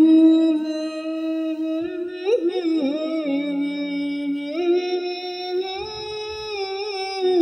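A woman humming the tune of a Marathi devotional bhajan in long held notes, sliding briefly between pitches about two seconds in and again near five seconds.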